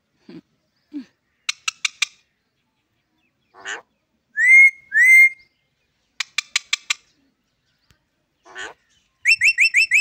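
Green parrot whistling and chirping in separate bursts: runs of short sharp chirps, two loud rising whistles in the middle, and a quick run of five rising whistle notes at the end.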